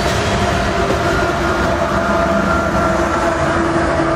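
Rear distributed-power diesel locomotive of a loaded coal train passing close by: engine and wheel-on-rail noise with a few steady whining tones, loud and even throughout.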